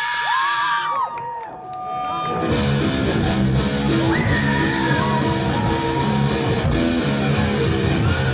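A live crowd cheering, then about two and a half seconds in a rock band starts a heavy, rough electric guitar riff with a steady beat underneath.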